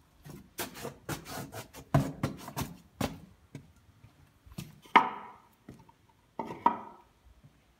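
Knocks and rustling as someone pushes open a wooden door and walks in across a tiled floor: a run of taps and rustles, then two sharp knocks with a short ring about five and six and a half seconds in.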